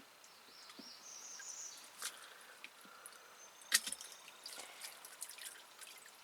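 Faint drips and small clicks of water falling from a wet magnet-fishing magnet and rope just lifted out of a well, one sharper click a little before the middle. A faint high wavering chirp in the first couple of seconds.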